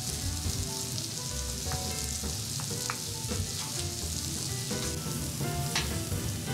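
Cream pasta sizzling in a hot pan on a griddle while a wooden spoon stirs it, with a steady hiss and scattered small crackles.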